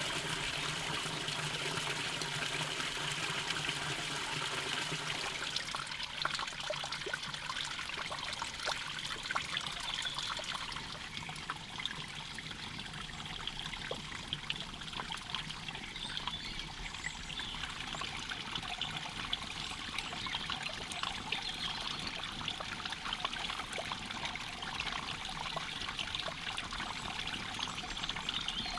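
Small forest stream trickling and splashing steadily. From about six seconds in, scattered small crackles and clicks sound over it.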